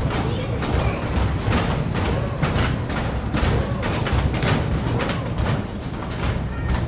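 Arcade basketball shooting machine in play: balls hit the backboard and rim in a steady run of impacts, about two a second, with the machine's electronic sound effects faintly over them.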